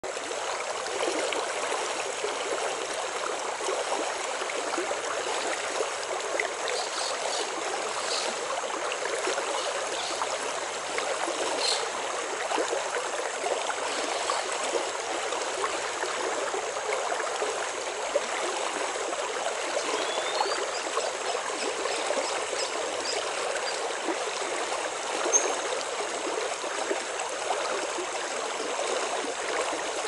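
Steady rush of flowing water, like a forest stream, with a few faint high ticks and short whistles over it.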